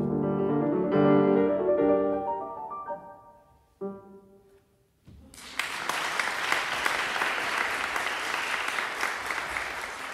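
Grand piano playing the closing bars of a piece, the notes dying away into a final, softer chord about four seconds in. About a second after it, the audience breaks into steady applause.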